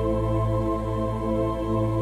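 Slow, ambient new-age instrumental music holding a sustained chord.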